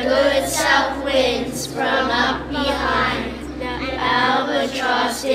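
A group of children singing together in sustained phrases, over a low steady hum.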